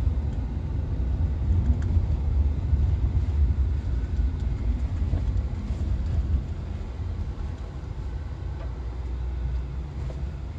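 BMW X5 cabin noise while driving on a rough dirt track: a steady low rumble of engine and tyres, easing a little after about six seconds.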